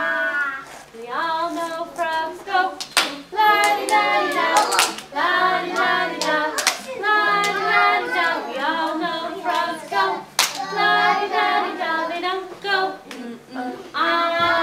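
A group of young children singing a song together, with a few sharp hand claps scattered through.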